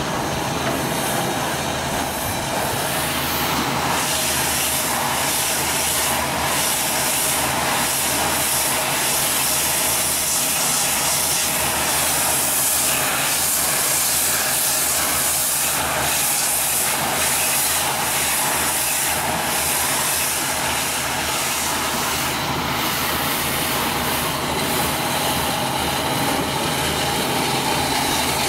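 An engine running steadily, with a loud steady hiss over it that grows stronger about four seconds in.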